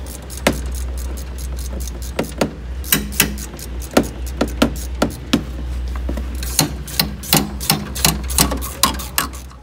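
Hand tools clicking and knocking on the metal AC line fittings as they are tightened back onto a car's AC condenser, a few irregular sharp clicks a second, over a steady low hum that stops at the very end.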